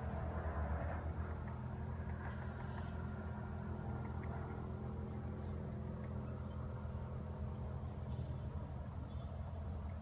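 Steady low engine hum, like a motor vehicle running, with a few faint, very short high chirps scattered through.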